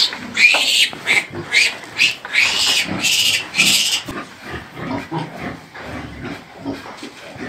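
Piglet squealing while being held and handled: a run of short, high squeals over the first four seconds, then quieter.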